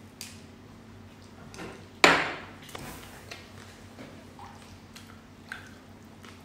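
Small clicks and crackles of cooked prawn shells being pulled apart by hand, with one louder sudden noise about two seconds in that fades quickly.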